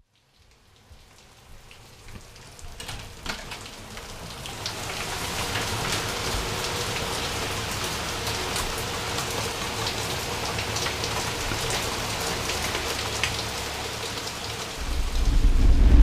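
Heavy rain falling hard, a steady hiss with many sharp drop ticks, fading in over the first few seconds. Near the end a loud low rumble rises sharply over it.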